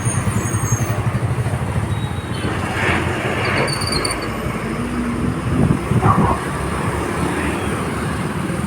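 Steady low rumble of passing vehicle traffic, with a few brief louder sounds around the middle.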